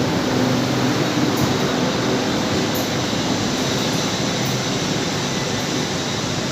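A Hitachi Class 800-series intercity train standing at the platform with a steady hum and a few held low tones from its running equipment. The tones fade slightly partway through and come back near the end.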